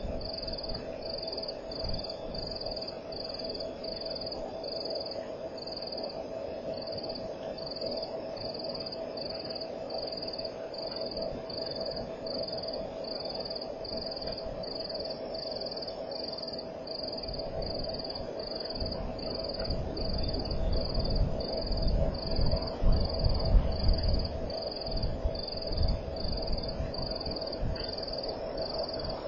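Night insect, cricket-like, chirping in a steady rhythm of about one and a half high chirps a second over a constant lower drone. Low rumbling noise swells from a little past halfway and fades near the end.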